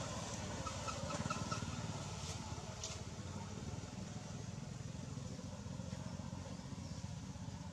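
Steady low outdoor rumble, with a few faint short chirps in the first two seconds.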